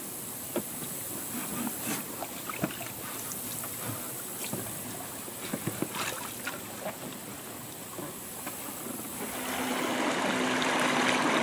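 Lake water sloshing and small knocks as a plastic barrel boat is pushed through the shallows and boarded. From about nine seconds in, a louder steady rush of water with a low hum as the boat moves along under its electric trolling motor.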